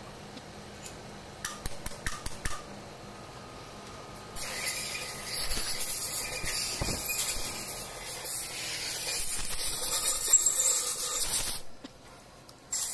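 A few light clicks, then a steady, loud, high-pitched hiss that starts about four seconds in, runs for about seven seconds and cuts off suddenly near the end.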